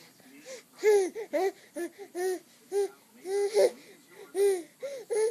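A high-pitched voice making a quick string of short, wordless squeals that rise and fall in pitch, about two a second, starting half a second in.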